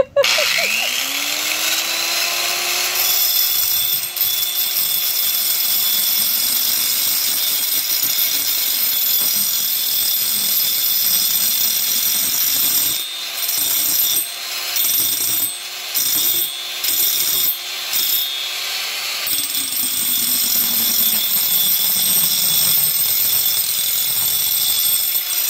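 Power tool motor spinning up, then grinding on a metal oil filter wrench that is being cut down for clearance. The grinding stops and starts briefly several times in the middle, and one motor winds down about 20 seconds in while the grinding noise goes on.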